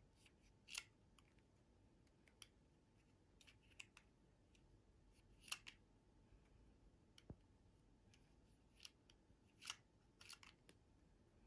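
Faint, scattered clicks and snips, about seven in all, of small hand tools handling or cutting a rigid foam float blank.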